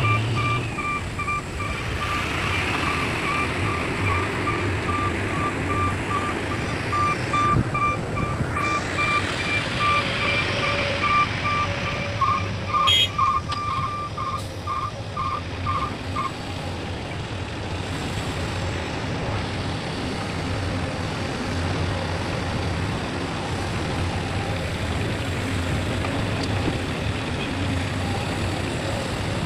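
A backup alarm on heavy machinery beeps at a steady pace over a running engine. About twelve seconds in the beeps quicken and turn to a two-tone pattern, then stop about four seconds later while the engine keeps running.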